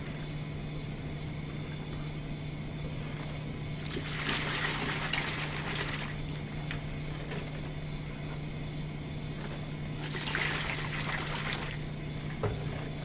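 Water and clay suspension sloshing inside a hand-held plastic bottle as it is shaken, in two bursts of about two seconds each, mixing the flocculant drops through the water. A short knock near the end, with a steady low hum underneath.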